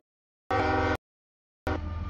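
Locomotive air horn of a CSX freight train sounding a held chord over a low engine rumble, cut into half-second bursts with dead gaps between them. Near the end the horn is weaker and the rushing noise of the passing train takes over.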